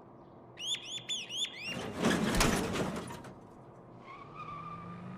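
Animated-series sound effects: five quick rising chirps in a row, then a loud whoosh lasting about a second and a half. About four seconds in, a steady engine-like hum starts.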